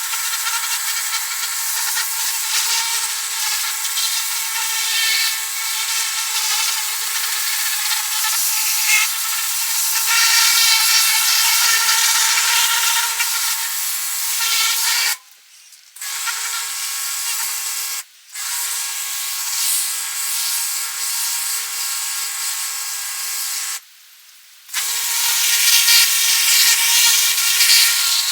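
A handheld power tool running steadily with a constant whine and a rough hiss. It drops out abruptly three times: about halfway through, briefly a few seconds later, and for about a second near the end.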